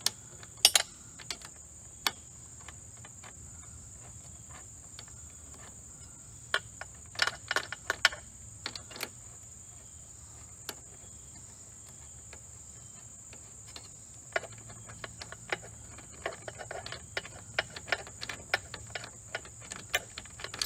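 Sharp metallic clicks and taps from a ball-end hex wrench and loose hardware as hex-head screws are worked out of a roller bracket, in a cluster about seven seconds in and many more from about fourteen seconds on. A steady high-pitched whine runs underneath.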